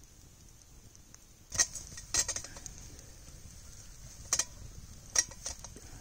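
A handful of sharp, separate clicks and clinks over a faint steady hiss, from a wood campfire burning in snow and a stainless steel camp pot being set among its logs. The first click comes about a second and a half in, and the rest are scattered through the remaining seconds.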